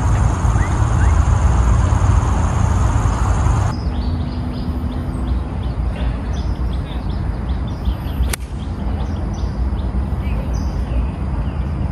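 A single crisp strike of a 9-iron on a golf ball about eight seconds in, over scattered bird chirps and a low outdoor rumble. Before that, a steady noisy rumble cuts off abruptly about four seconds in.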